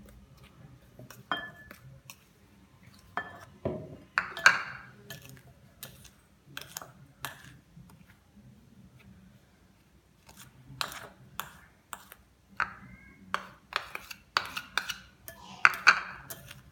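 A plastic spoon and a small ceramic bowl knocking and scraping against a glass mixing bowl while powdered sugar and ground sesame are tipped in and stirred: a run of irregular sharp clinks, a few leaving a brief ring.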